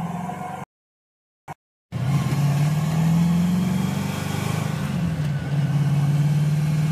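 Stick-shift Mustang engine heard from inside the cabin while driving. It climbs in pitch, drops about five seconds in and then runs steady. The sound cuts out completely for about a second near the start.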